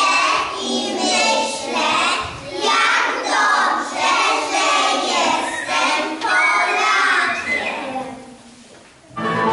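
A group of young children singing together. They stop about three-quarters of the way through, and after a short pause instrumental music starts just before the end.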